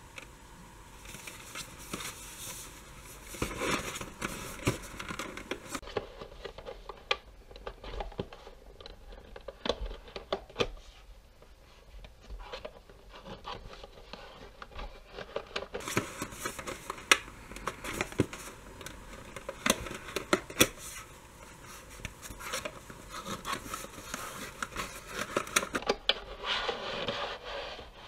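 Cardboard packaging being handled: irregular scrapes, rubs and sharp taps as the box is opened and a white inner tray is slid out of its outer sleeve.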